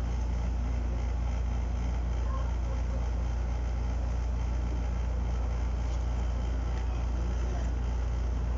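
A steady low hum with no change in level.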